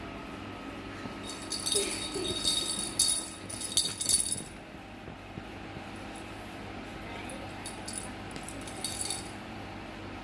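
Small bell in a cat toy jingling as a kitten plays with it: a loud flurry of jingles for about three seconds, then fainter jingles near the end.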